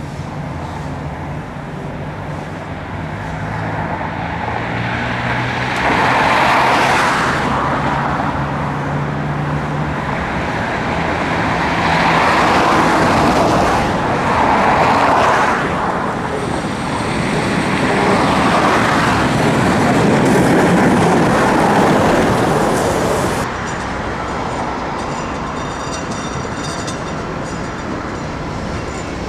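Street traffic: several vehicles pass one after another, each swelling and fading, over a low steady hum in the first part. Near the end the traffic eases and faint high steady tones come in.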